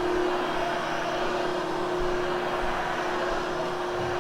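Vacuum cleaner motor running steadily: an even hum with a constant whine and a broad hiss.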